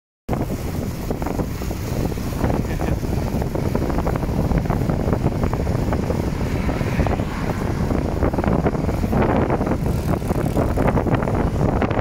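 Strong wind rushing over the microphone of a camera riding on a moving bicycle, a steady rumbling roar with constant crackle.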